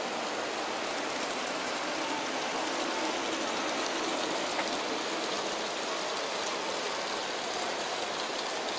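A steady, even rush of water.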